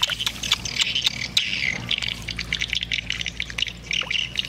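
Hands splashing and sloshing in shallow muddy water while grabbing for a fish among water plants, a quick irregular run of small splashes.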